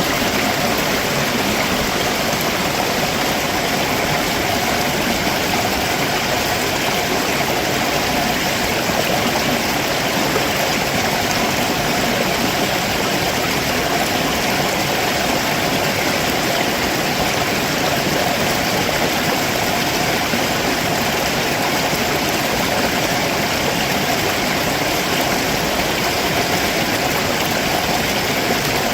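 Stream water rushing steadily over rocks below a waterfall, a dense unbroken noise.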